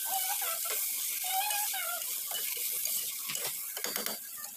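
Okra sizzling as it fries in hot ghee in an aluminium karahi, with a spatula stirring and scraping through it.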